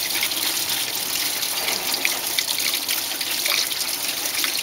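Engine coolant pouring out of the opened electric thermostat housing on a Range Rover L322's BMW M62 V8 and splashing down into a catch receptacle, a steady trickling gush: the cooling system draining once the housing is unbolted.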